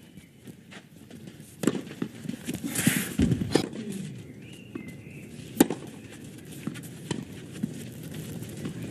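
Tennis ball struck by rackets in a clay-court rally: sharp single pops spaced a second or more apart, the loudest about two-thirds of the way in. A brief burst of crowd applause comes about three seconds in.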